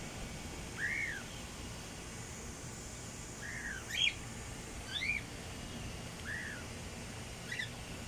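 Cockatiels calling in an aviary: about six short whistled calls, each rising and falling in pitch, spaced a second or so apart, with the loudest about four seconds in. A steady low background noise runs underneath.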